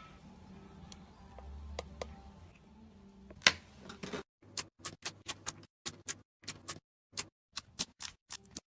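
Slime being handled, making sharp clicking pops. After a faint hum with a few small clicks, one loud click comes about three and a half seconds in. From about four seconds in the clicks come in an uneven string of roughly two a second.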